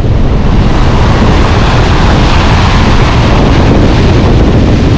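Strong gale wind blasting across the microphone in a continuous heavy rumble, with the roar of storm surf on the Black Sea shore beneath it.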